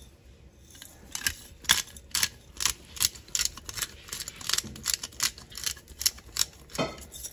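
Black pepper being ground from a hand pepper mill: a run of dry clicks, about four a second, starting about a second in and stopping near the end.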